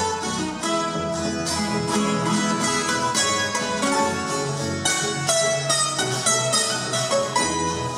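Colombian Andean string trio playing: tiples and requinto plucked in quick running notes over a double bass line.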